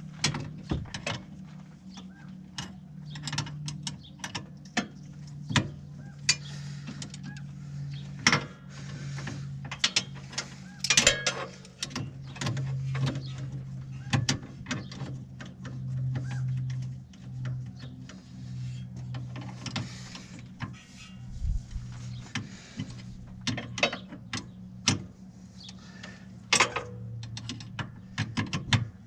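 Hand tool working a brake cable adjuster nut: irregular ratchet clicks and metallic knocks as the parking brake cable is tightened, over a steady low hum.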